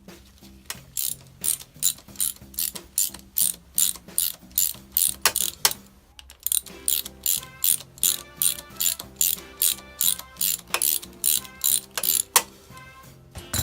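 Hand ratchet wrench clicking in a steady rhythm, about two clicks a second, as it backs out the front sprocket fastener on a Honda NSF100, with a short pause about halfway through. Background music plays underneath.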